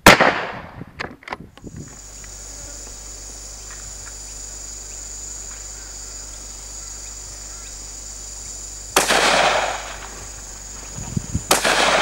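Rifle shots from a Howa 1500 bolt-action in .223 Remington: one very loud, sharp report at the start, followed by a few quick clicks, then two quieter reports near the end. A steady hiss with a high, thin whine sits underneath between the shots.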